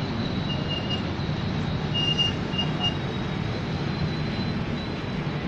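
Coaches of the Taksaka executive passenger train rolling slowly past, a steady rumble of wheels on the rails. A few short high squeaks sound between about half a second and three seconds in.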